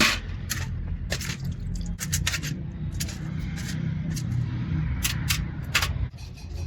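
Small metal parts and hand tools clicking and scraping during work on a common rail diesel injector: a dozen or so sharp clicks, some in quick clusters, over a steady low rumble.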